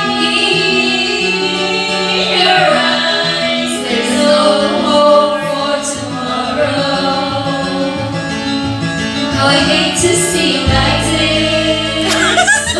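Women singing karaoke into microphones over a recorded backing track.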